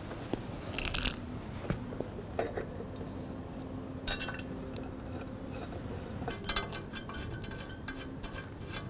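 Metal wing nuts being handled and threaded onto the leg fittings of a metal tripod: irregular light metallic clinks and taps, a few louder ones about a second, four seconds and six and a half seconds in.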